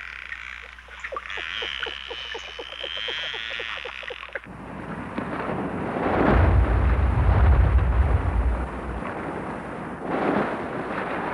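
Bottlenose dolphin sounds: a steady high whistle held for about three seconds over a train of echolocation clicks. About four and a half seconds in, this cuts off to a loud rushing noise with a deep rumble that swells for a few seconds and surges again near the end.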